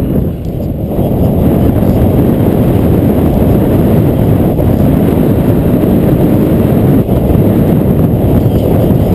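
Wind buffeting the microphone at descending speed: a loud, steady low rush with a brief dip about half a second in.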